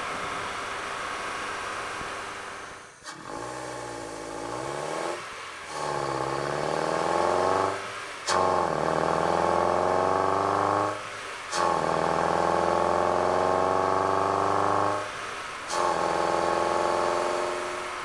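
Mazda Miata NB's four-cylinder engine intake note as the car accelerates through the gears. The pitch climbs in each gear and is broken by brief drops at the shifts, about five times. Near the end it steadies and fades a little.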